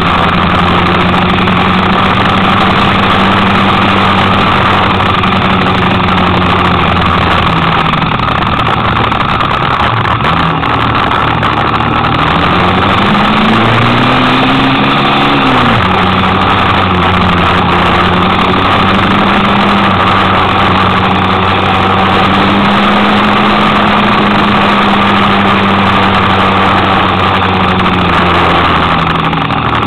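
Kymco Quannon 125cc motorcycle's single-cylinder four-stroke engine running on the road, heard from the bike with wind and road noise. The engine note drops about eight seconds in, climbs in pitch a few seconds later as it accelerates, then settles into a steady cruise.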